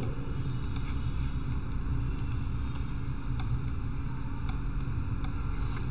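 Steady background noise from the recording microphone, a low rumble with hiss, with a few faint clicks scattered through it.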